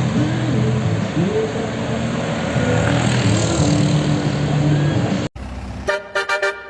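Loud bus engine and road noise with people's voices over it. After a sudden cut about five seconds in, a basuri-type telolet horn starts playing a quick tune of short, stepped tones.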